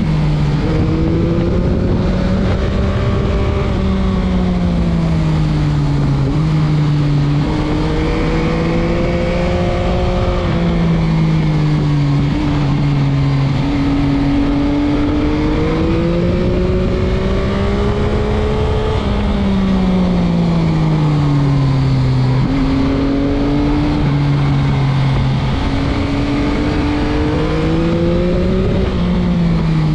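Stock 2021 Yamaha MT-09's 890 cc inline-three engine, heard from the rider's seat while riding: the revs climb and fall repeatedly, with several sudden drops in pitch.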